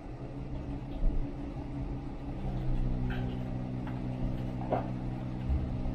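Steady low electrical hum of several tones from the bench electronics, growing fuller about three seconds in, with a few faint taps.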